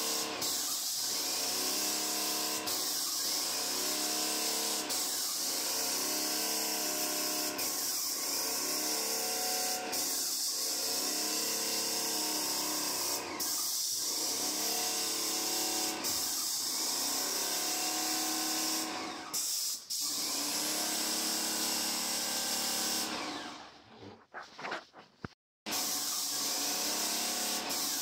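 Graco X5 airless paint sprayer spraying ceiling paint: a steady hiss of paint from the spray gun, pulsing about every two seconds. It dips briefly about two-thirds of the way through, then cuts out for a couple of seconds near the end before resuming.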